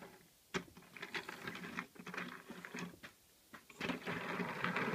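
Plastic building-block toy train being handled and moved on a table: a sharp click about half a second in, irregular clattering of the plastic blocks, a brief pause, then a denser, steadier rattle from about four seconds in.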